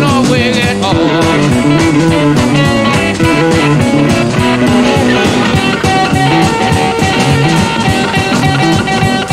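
Live electric blues band playing: two electric guitars over a drum kit, with no bass, in a loud, driving groove and guitar notes bending in pitch near the start.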